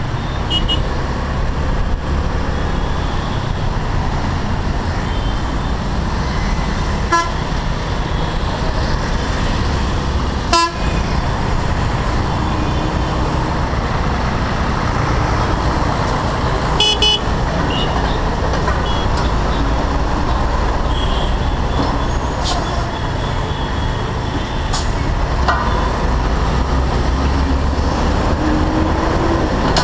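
Steady running noise of a Honda Navi riding in city traffic: the small single-cylinder scooter engine's hum under a constant rush of wind and road noise. Vehicle horns toot briefly several times, the clearest about halfway through, and a sharp knock comes about a third of the way in.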